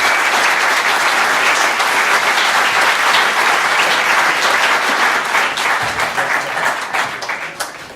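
Small audience applauding and clapping after a song, dying away over the last couple of seconds.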